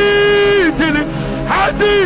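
A man's long held chanted note that breaks off a little over half a second in into a few quick gliding syllables, over steady background music.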